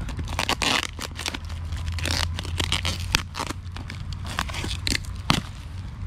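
Parcel packaging being torn open and crumpled by hand: irregular crackling and crinkling with a few sharp snaps.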